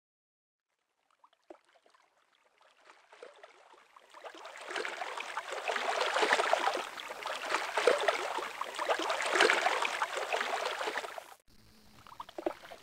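River water lapping and splashing, fading in over the first few seconds. It cuts off abruptly near the end and gives way to quieter water sounds over a steady low hum.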